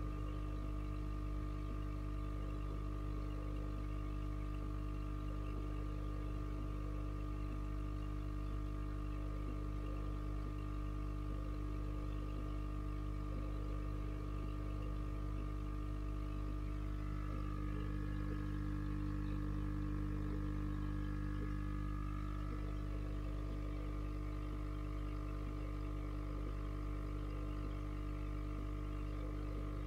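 Steady hum of running aquarium equipment: a constant low drone with several fixed tones above it. A faint higher tone joins for a few seconds past the middle.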